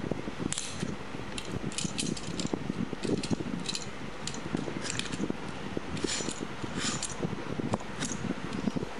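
Utility knife blade cutting through a cardboard tube: a series of short, irregular scratchy strokes as the blade is pushed and drawn through the card, with small clicks and knocks from handling the tube and knife.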